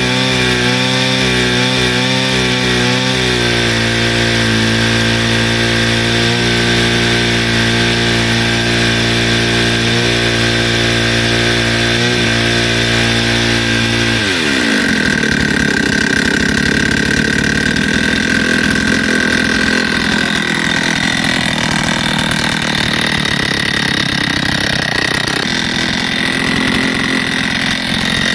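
Stihl FS160 brushcutter's two-stroke engine running after a service. It idles a little unevenly for the first few seconds, then settles to a steady idle. About halfway through the throttle is opened and it revs up to a high, steady whine.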